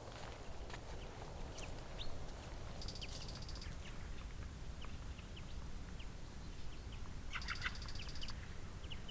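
Wild birds calling: scattered short chirps throughout, with two brief rapid trills, one about three seconds in and one near the end. A steady low rumble runs underneath.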